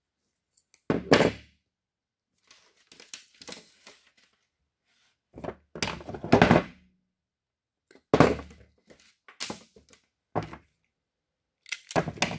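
Hand tools and wire being handled on a workbench: a series of irregular thunks and clatters, loudest about a second in, around six seconds in and about eight seconds in, as cutters and pliers are picked up and put down among the wires.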